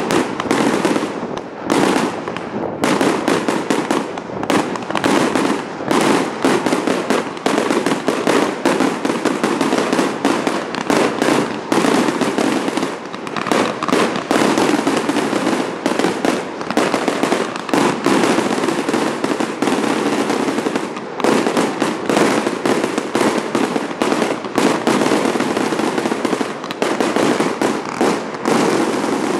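Fireworks display: a rapid, unbroken barrage of shells bursting and crackling, many bangs a second, without pause.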